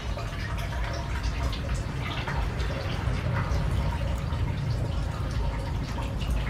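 Small drips and light splashes of water in a stainless-steel basin as raw pig brains are rinsed and handled by hand, with scattered soft wet ticks over a steady low rumble.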